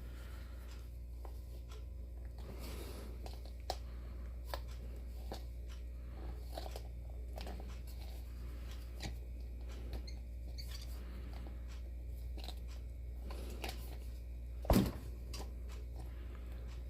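Faint scattered clicks and scrapes of hands working the stopper loose from the base of an old snow globe, over a steady low hum, with one sharper knock near the end.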